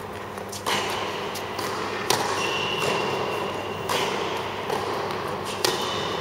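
Tennis rally in a large indoor hall: the ball struck by the rackets and bouncing on the hard court, a sharp hit about every second and a half. A high squeak is held for over a second partway through.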